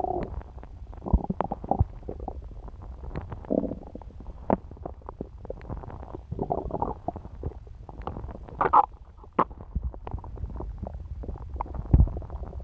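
A person's stomach gurgling and rumbling while digesting pizza. Bubbly gurgles and small pops come at irregular intervals every second or two over a low steady rumble, with the loudest, deepest pop near the end.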